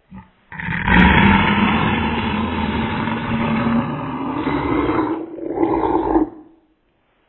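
A person's long, loud scream played back in slow motion, lasting about six seconds and changing in tone near the end before it stops.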